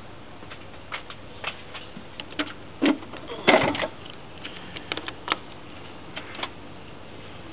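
Irregular clicks and knocks of tools and parts being handled on a car engine, with a louder clatter about three and a half seconds in.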